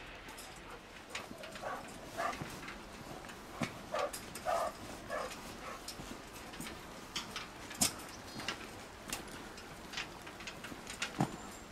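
Footsteps and a dog's paws on a steel-grating footbridge, giving irregular sharp clicks and taps on the metal mesh.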